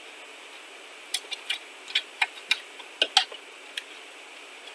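An irregular run of small sharp clicks and taps, about ten in two and a half seconds starting about a second in, from a component being worked into place by hand on a boiler control circuit board, over a steady faint hiss.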